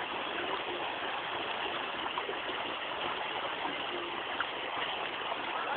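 Flowing water rushing steadily, as of a stream or small waterfall.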